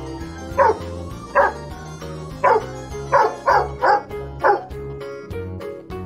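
A dog barking, seven short barks, the last about four and a half seconds in, over background music that carries on after them.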